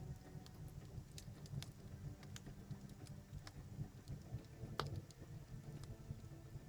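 Wood fire crackling in an outdoor fireplace: scattered sharp pops and snaps, the loudest a little before five seconds in, over a steady low rumble.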